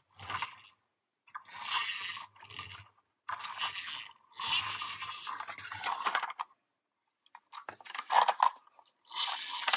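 Plastic toy recycling truck being handled and rolled along a surface: a series of short scraping, rattling bursts with brief pauses between them.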